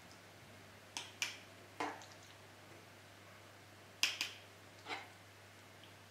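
Sharp clicks and knocks of a spatula against a glass jar and pot as thick plum butter is scooped into the jar: a few taps about a second in, a louder pair about four seconds in, and one more shortly after.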